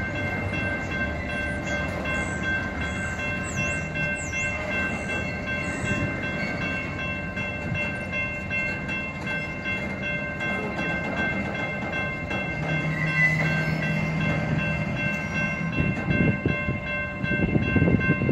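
Union Pacific freight train rolling slowly past, its cars making a steady running noise under several steady high tones that hold throughout, with louder knocks near the end.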